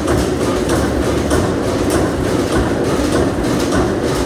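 Ronaldson & Tippett stationary engine running steadily, a loud, even, rhythmic mechanical clatter.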